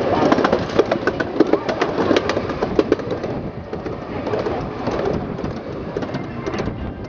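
Ride-on miniature railway train running on its ground-level track, its wheels giving a rapid, irregular clicking clatter. The clatter is busiest for the first three seconds and then eases off.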